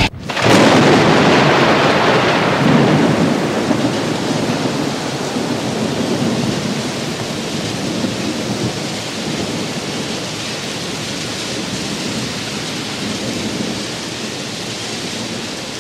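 Thunderstorm: a roll of thunder just after the start, fading slowly under steady rain.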